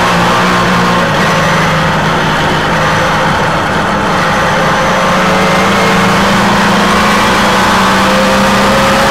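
Race car engine heard from on board, running at high revs under sustained throttle, with a slight easing about a third of the way in before holding steady again.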